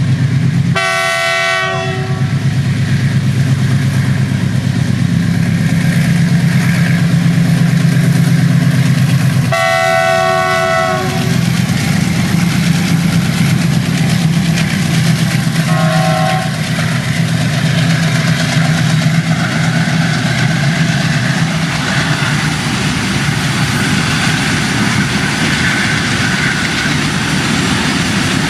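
WDG6G diesel freight locomotive hauling loaded coal wagons, its engine running with a steady low drone. The horn sounds a short blast about a second in, a longer blast around ten seconds in and a brief faint toot near sixteen seconds. In the later part the wagons roll past with rail clatter.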